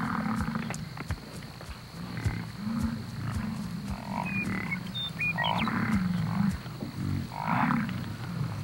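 American bison grunting: a run of short, low grunts, about one or two a second.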